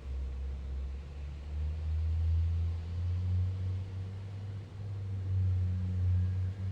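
Truck engine running at low revs with a deep, steady rumble. Its pitch rises slightly about a second and a half in and wavers after.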